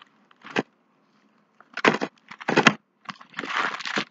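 Plastic packaging and small bags of diamond-painting drills being handled: a few short sharp crackles, then a longer crinkling rustle near the end.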